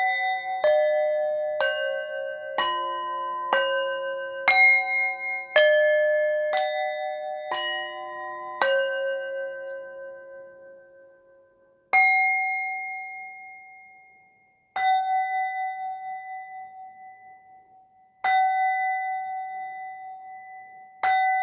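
Struck bell chimes: a run of about nine ringing notes of different pitch, roughly one a second, then four single strikes of the same note a few seconds apart, each left to ring and fade out.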